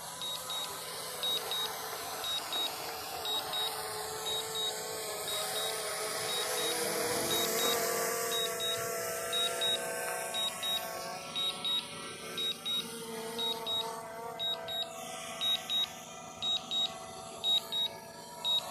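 Quadcopter drone hovering and descending to land, its propellers humming. The hum swells partway through and then eases off. Short double beeps sound about once a second, the remote controller's warning tones during the landing.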